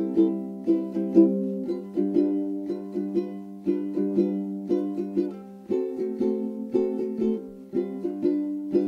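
Background music: a light tune of plucked string notes, each struck sharply and dying away, about two notes a second.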